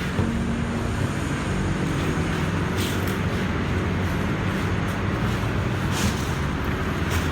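Honda GX620 V-twin generator engine running steadily.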